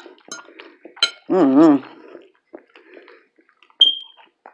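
Cutlery clinking on a plate while eating: scattered small clicks, then one sharp clink with a brief ringing tone near the end. A short hummed voice sound about a second and a half in.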